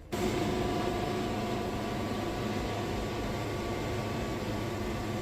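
Wood-Mizer portable band sawmill running steadily, its engine and band blade cutting through a large cypress log.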